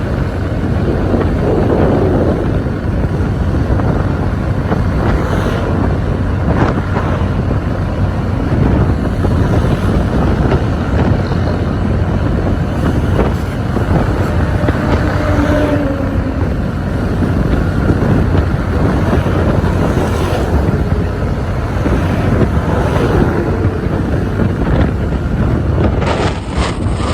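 Honda Click 125i scooter riding at road speed: a steady engine drone under heavy wind rush on the microphone.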